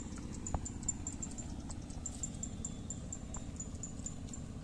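Outdoor ambience: a steady low rumble under a thin, very high chirping repeated several times a second, which stops near the end. A single light tap sounds about half a second in.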